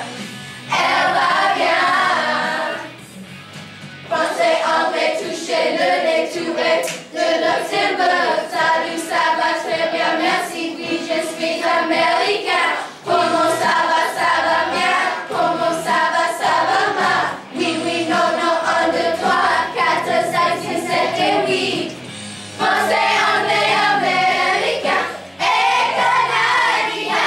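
A group of children singing a song together with instrumental accompaniment; the singing drops out for about a second roughly three seconds in.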